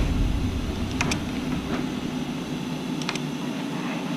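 Steady low rumble of wind on the microphone, with a few light clicks and taps of a speed square and pencil against 2x4 wall plates as the stud layout is marked: a pair about a second in and a short cluster about three seconds in.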